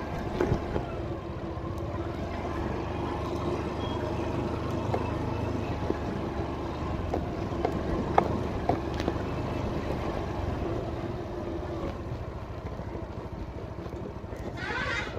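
A vehicle driving, with a steady engine and road-noise hum. A few sharp knocks come through it, and there is a brief hiss near the end.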